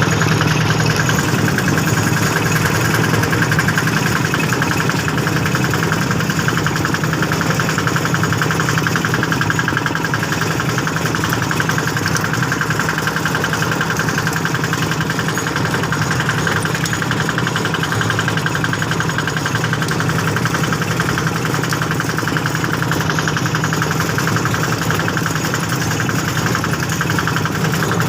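A small engine running steadily at a constant speed, with an even, fast pulse.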